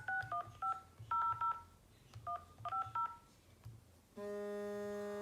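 Smartphone dialer keypad beeping its touch tones as a phone number is entered, in quick groups of short two-note beeps, each with a soft tap. Near the end a steady buzzy tone starts.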